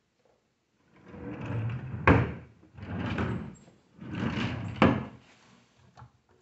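Wooden drawers of a sideboard sliding in their runners three times, two of the slides ending in a sharp knock as the drawer hits its stop. A couple of light clicks come near the end.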